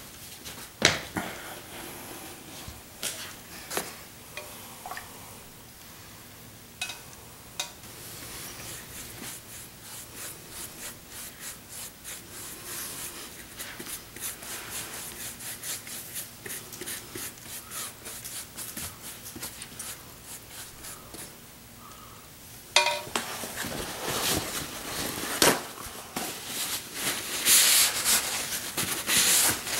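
Paintbrush dabbing and stroking watered-down black paint onto a PlastiDip-coated shield, a run of quick soft strokes with scattered clicks. About three quarters of the way through, louder rubbing of a rag or paper towel wiping the wash back off the surface.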